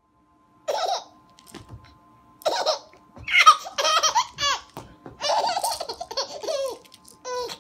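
A child laughing in several high-pitched bursts, starting about a second in.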